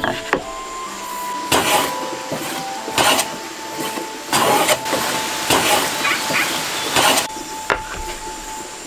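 Wooden boards knocking and sliding as they are set down one after another on a stack on a wooden workbench, about five clattering strokes a little over a second apart.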